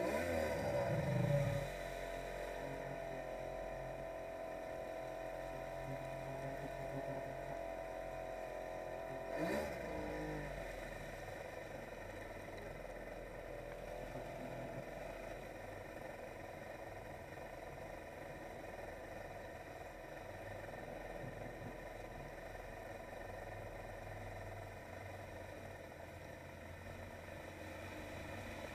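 Polaris SL 900 personal watercraft's two-stroke three-cylinder engine revving up, then running steadily at cruising speed. About nine and a half seconds in, the revs dip briefly and climb back.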